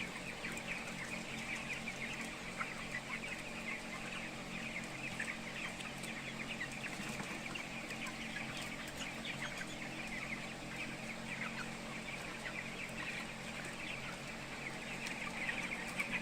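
A flock of young broiler chickens cheeping and clucking, many birds calling over one another without a break, over a steady low hum.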